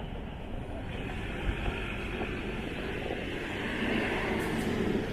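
City street traffic noise, steady at first, then growing louder about four seconds in as a large vehicle, a city bus, passes close by.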